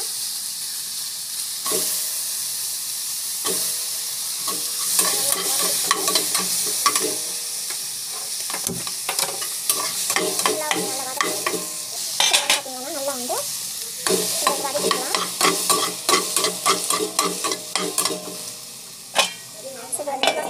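Tomato pieces sizzling in hot oil in a pan, with a spatula scraping and clicking against the pan as they are stirred.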